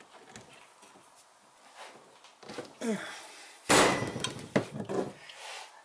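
A pry tool working at an old rear main seal in an aluminium seal housing: faint scraping and ticking, then a loud metallic clatter about two-thirds of the way through, followed by a couple of sharp clinks. The seal is not budging.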